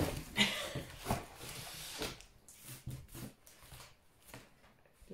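Scissors cutting through a large corrugated cardboard box, with the cardboard scraping and rustling: several louder cuts and rustles in the first two seconds, then fainter, scattered ones.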